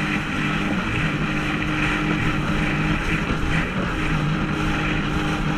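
Sea-Doo jet ski engine running steadily at speed, a constant drone under the rush of water and wind.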